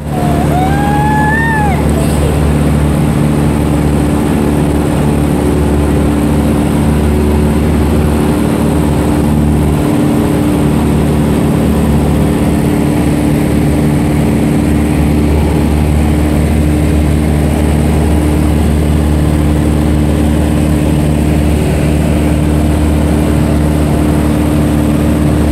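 Light propeller aircraft's piston engine running steadily in flight, a constant loud drone with several even low tones. A short wavering whistle-like tone sounds about a second in.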